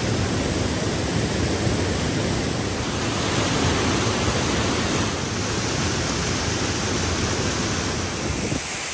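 Waterfall: a steady rush of falling water. Near the end the deep part of the rush briefly drops away.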